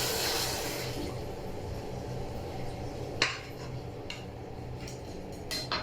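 Serving spoon scraping in a pot and clinking against the dishes as chicken is served onto a plate: a scrape for about the first second, then a sharp clink about three seconds in and another near the end.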